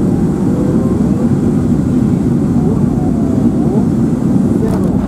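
Boeing 737-800 on final approach, heard inside the cabin: a loud, steady low rumble of engines and airflow.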